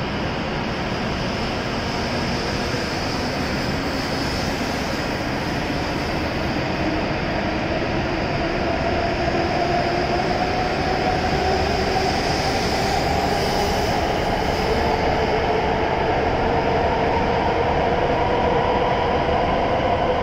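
W7 series Shinkansen train pulling out and gathering speed, its electric traction motors whining in a slowly rising pitch over the steady noise of the cars rolling past.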